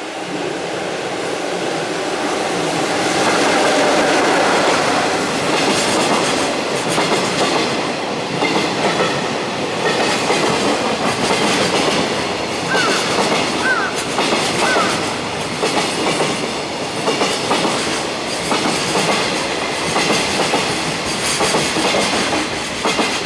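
Container freight train hauled by an EF66 electric locomotive rolling past: a steady rumble of steel wheels that grows louder over the first few seconds, then a repeating clickety-clack over the rail joints as the container wagons go by. About halfway through, the wheels give three short squeals on the curve.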